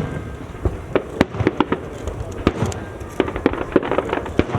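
Fireworks going off: many sharp bangs and pops at irregular intervals, several close together at times.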